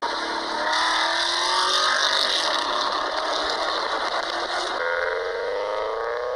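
Car engine sound clips played one after another. The first is a Porsche Cayenne accelerating, its pitch climbing steadily. About five seconds in it switches to a second car's engine, which starts lower and climbs again.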